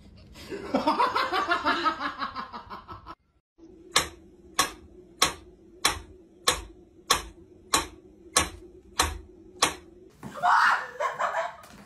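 A person laughing for about three seconds, then a wind-up pendulum metronome ticking steadily, about ten ticks at roughly one and a half a second. A short louder cry follows near the end.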